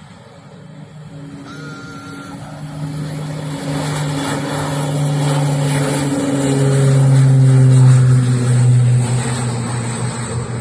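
Turboprop airplane flying past: a propeller drone builds steadily in loudness, drops in pitch around six to seven seconds in, peaks about eight seconds in, then begins to fade.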